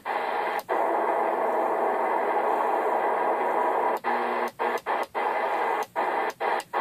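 Browning Sabre AM CB radio's speaker giving out steady static and band noise while tuned across the channels. The noise cuts out briefly each time the channel selector clicks to the next channel: a quick dropout near the start, then a run of them in the second half.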